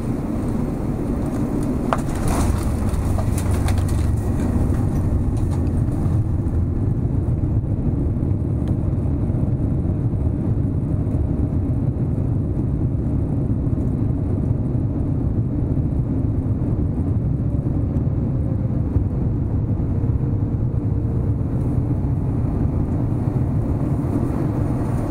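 Cabin noise of a Boeing 787-9 during its landing rollout: a loud, steady low rumble of engines and wheels on the runway. It swells with some rattling about two seconds in, then holds even as the aircraft slows.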